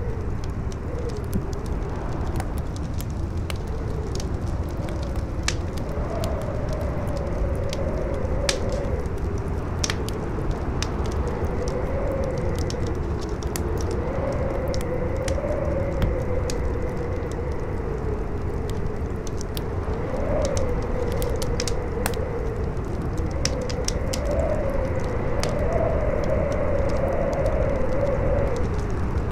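Campfire crackling with scattered sharp pops, over strong howling wind: a low steady rumble with a howling tone that slowly rises and falls in pitch.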